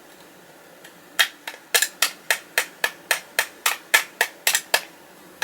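A rapid series of sharp taps, nearly four a second, starting about a second in: a tool tapping down the metal tabs of a Bandai tin toy car body to lock the rear window in place.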